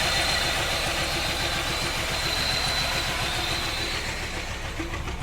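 A 2001 Pontiac Grand Am engine idling roughly and knocking hard, with a thin steady high whine over it: a misfire that a code reader put on cylinder 1 and that new spark plugs and one new ignition coil have not cured.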